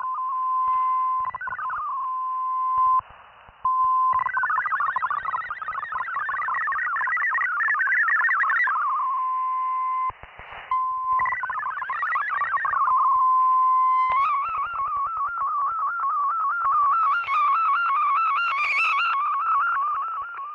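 Shortwave digital-mode data broadcast heard through a radio receiver: a steady tone near 1 kHz alternates with rapidly hopping, warbling multi-tone data. The signal drops out briefly twice. From about two-thirds of the way in, a single tone wavers up and down continuously.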